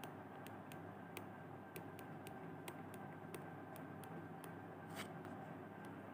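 Faint stylus ticks on a tablet screen during handwriting, irregular and about three a second, over a steady low hum and hiss.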